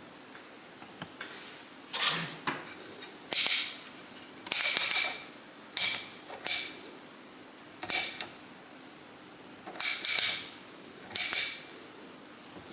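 Ridgid magnetic task light's pivoting head being swung and rotated, its joints giving about nine short ratcheting creaks with pauses between.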